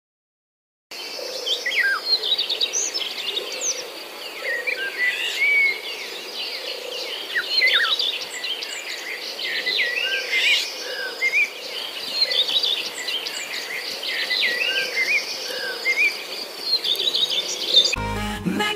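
A chorus of birds chirping and calling over a steady insect-like drone, starting suddenly about a second in. Near the end it cuts sharply to a different sound.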